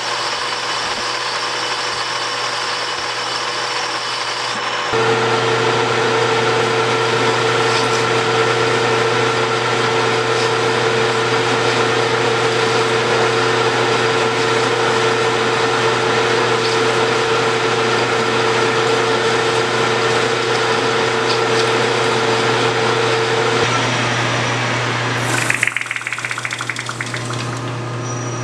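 Metal lathe running steadily while turning a brass bushing blank: motor and gear-train whine with a low hum, and the tool cutting brass. About five seconds in it becomes louder with a new steady tone. Near the end the running sound drops and changes.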